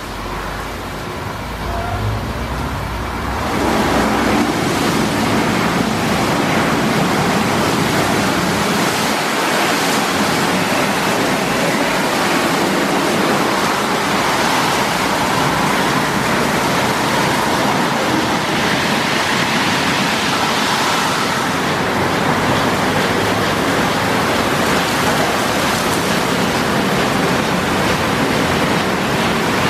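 Aquarama Stargate S7 rollover car wash in its brush-wash stage: spinning brushes scrubbing a car under a spray of water, a steady loud rush that steps up about three and a half seconds in.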